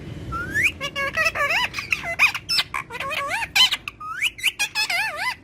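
Green Indian ringneck parakeet chattering in a rapid string of short, warbling squawks and squeaks, the pitch swooping up and down within each note.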